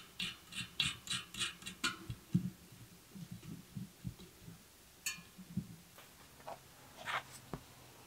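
Hands working on a bare bicycle rim and then handling a new tyre on its cardboard backing: a quick run of scratchy rubs in the first two seconds, soft knocks and taps, a sharp click about five seconds in, and a few rustles near the end.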